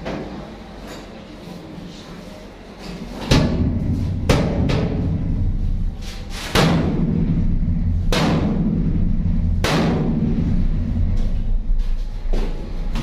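Sledgehammer blows on the corrugated steel wall of a shipping container: about six heavy, ringing strikes at uneven intervals. A loud, steady low drone comes in about three seconds in.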